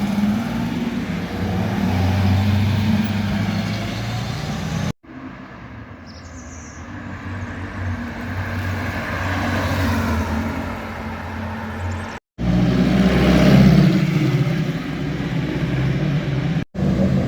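Classic car engines running and accelerating past, in three short stretches that cut off abruptly between them.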